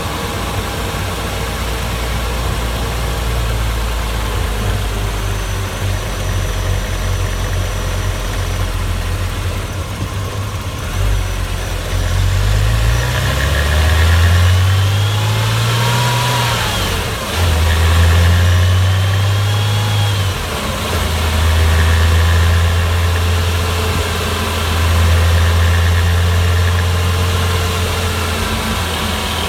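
Porsche Boxster S (986) 3.2-litre flat-six engine running with a low, steady drone; about halfway through its pitch rises, dips briefly, then settles at a steady higher note.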